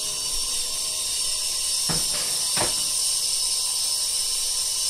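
Steady high-pitched hiss, with two faint brief knocks about two seconds in.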